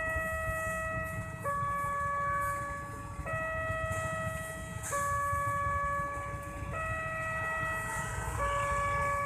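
Railway level-crossing warning siren sounding a two-tone alarm, switching between a higher and a lower pitch about every one and a half to two seconds, warning that a train is approaching.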